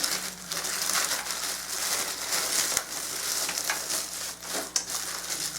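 Plastic packaging bag crinkling and rustling with many small crackles as it is slit with a knife and worked open by hand.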